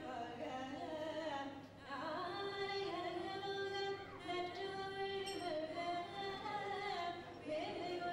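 Devotional music: a single melody line of long held notes that bend and glide from one pitch to the next, without a break.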